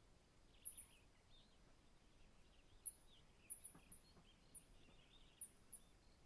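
Faint savanna morning ambience with birds: short, very high chirps at irregular intervals, about nine of them, over softer, lower bird calls and a faint steady high tone.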